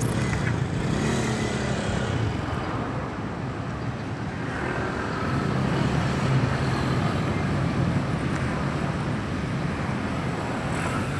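Road traffic passing: a steady drone of vehicle engines and tyre noise, swelling a little about six seconds in as a vehicle goes by.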